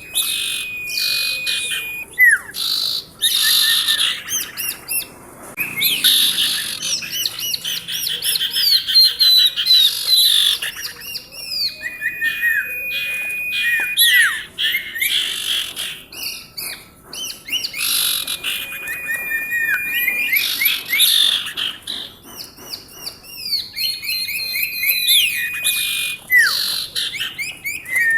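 Female sirtu (common iora) singing vigorously: rapid chirps and trills, broken every few seconds by a long, level whistled note.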